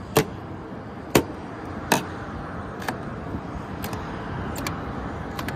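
A steady background rumble with about seven sharp clicks or knocks, roughly a second apart.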